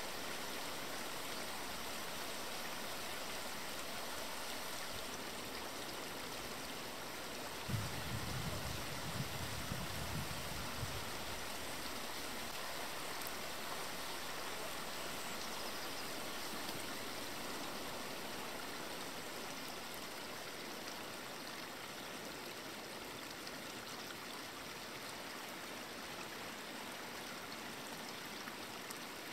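Steady rush of running water from a stream, with a few soft low thumps about eight seconds in.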